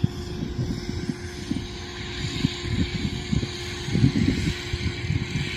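Rice combine harvester engine running steadily, with irregular wind rumble on the microphone.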